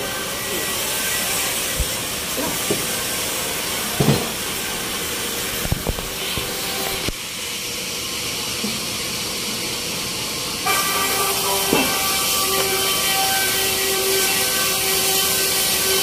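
Band sawmill machinery running with a steady hissing noise, with a few short knocks in the first six seconds as the teak log is handled on the carriage. The sound changes abruptly about seven seconds in, and a steadier hum sets in about eleven seconds in.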